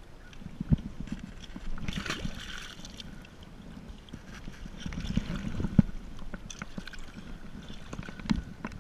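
Water splashing and sloshing as a rainbow trout is released from a wooden landing net into a shallow river, with wind rumbling on the microphone. The biggest splash comes about two seconds in, more sloshing follows around five to six seconds in, and a few sharp knocks are scattered through.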